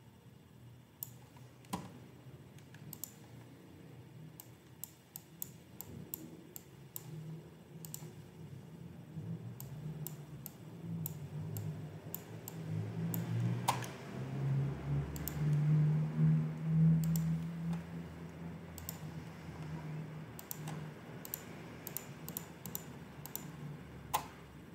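Scattered light clicks and taps. Under them a low, muffled hum swells up through the middle and fades again.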